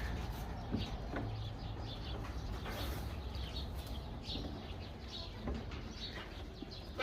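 Goats feeding on freshly cut alfalfa, with faint scattered rustles and crunches over a steady low rumble, and birds calling in the background.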